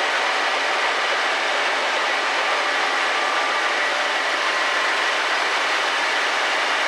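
2005 MAN Roland Cromoman 70 web offset printing press running in production, a loud, steady, dense mechanical din with faint steady whining tones under it.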